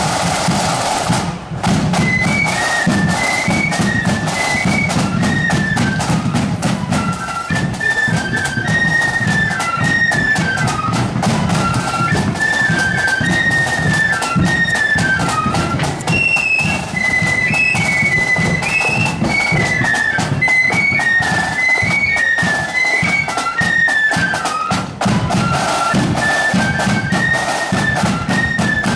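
Marching flute band playing a tune: massed flutes carry a high melody over steady snare and bass drum beats.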